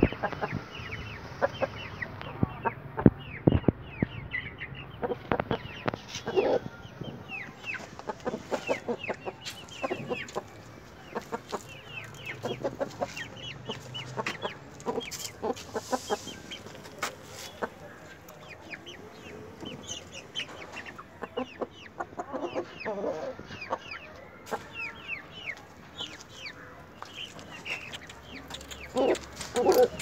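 Chickens clucking in a coop, with many short, sharp clicks scattered throughout.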